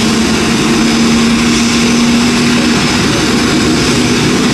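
Loud, steady jet noise from an Airbus A330-900neo airliner during pushback by a towbar tug, with a steady drone underneath.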